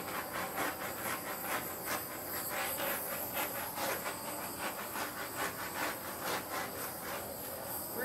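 Handheld torch flame hissing steadily as it is swept over wet acrylic paint to pop surface air bubbles, with a fast, uneven crackle running through it.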